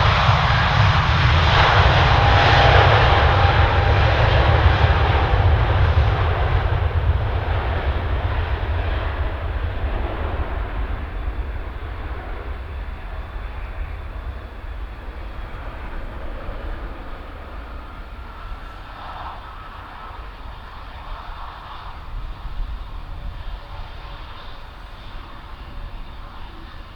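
Airbus A350-900's Rolls-Royce Trent XWB turbofans at takeoff thrust: a loud, deep rumble with a jet hiss over it for the first several seconds, then fading steadily as the departing airliner draws away.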